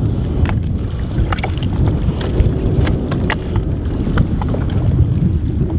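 A redfish (red drum) croaking while held out of the water, heard under heavy wind rumble on the microphone, with a few faint clicks.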